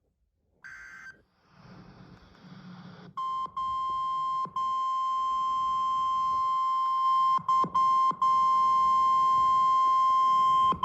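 NOAA Weather Radio alert sequence: a short screech of SAME digital header data, a moment of radio hiss, then the steady 1050 Hz warning alarm tone that announces a new severe weather warning. The tone holds one pitch and drops out for a split second several times.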